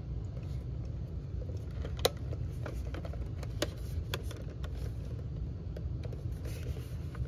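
Scattered light clicks and taps of a plastic Polaroid One600 Ultra instant camera body being handled and fumbled at, the sharpest about two seconds and three and a half seconds in, over a steady low background hum.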